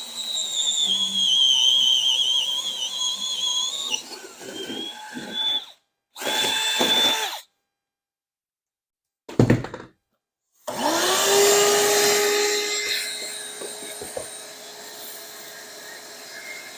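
Power drill boring the holes for the hot and cold water supply lines through the floor. A high whine wavers under load for the first few seconds and then stops. After a couple of short breaks the motor spins up again to a steady hum that slowly fades.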